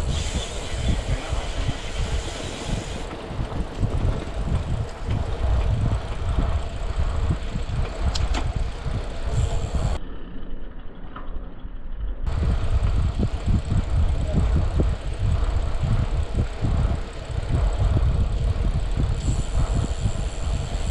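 Wind buffeting the microphone of a handlebar-mounted camera on a moving bicycle, with tyre and road rumble: a steady, gusty rush strongest in the lows. About halfway through, the sound turns briefly muffled for two seconds.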